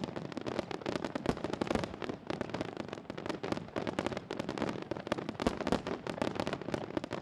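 Fireworks finale barrage: aerial shells bursting in a dense, rapid, unbroken string of bangs and crackles, many per second.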